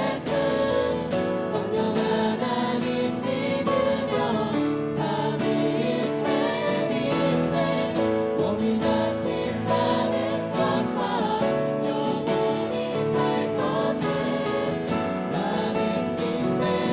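Live contemporary worship music: a group singing a praise song over guitar accompaniment.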